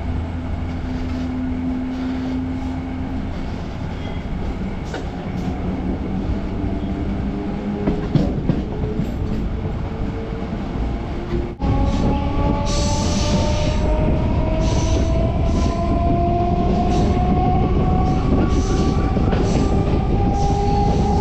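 Electric MEMU train running on the rails. About halfway through, the sound breaks off sharply, then the motor whine rises slowly and steadily in pitch as the train gathers speed, over a repeated rattle of wheels on the track.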